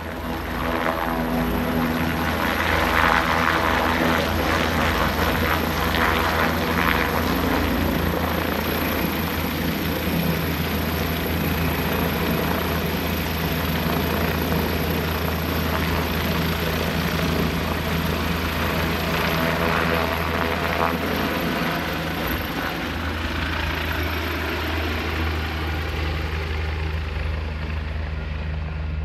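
Leonardo AW169 twin-turbine helicopter lifting off and climbing away: continuous rotor noise with a steady high turbine whine. It is loudest a few seconds in and eases slightly toward the end.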